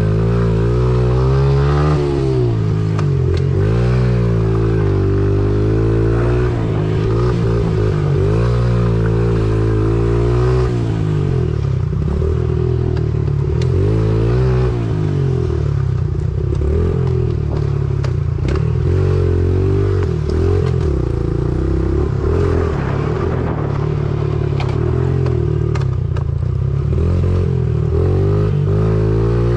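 Honda mini dirt bike's small single-cylinder four-stroke engine being ridden, revving up and easing off over and over, with occasional rattles and clicks.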